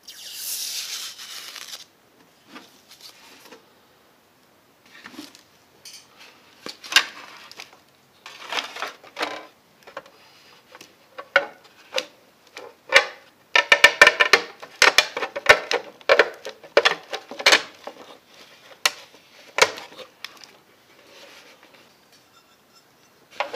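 Hands handling a welding hood and its lens plates: a short rustle right at the start, then scattered clicks and light knocks, with a busy run of rapid clattering in the middle as the hood and lenses are worked at.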